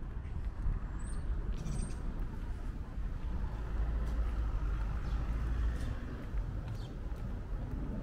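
Street traffic noise: a vehicle's low rumble that swells around the middle and eases off, with two short high chirps about one and two seconds in.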